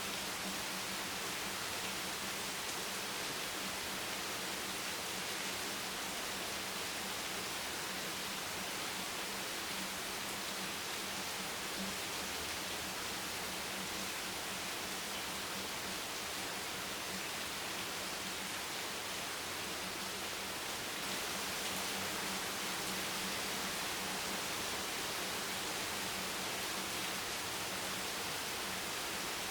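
Heavy rain falling steadily, an even dense hiss with no single drops standing out, a little louder from about two-thirds of the way in. A faint steady low hum runs underneath.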